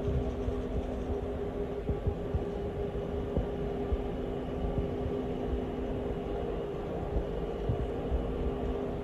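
Steady mechanical running noise with a low rumble and a steady hum underneath, unchanging throughout.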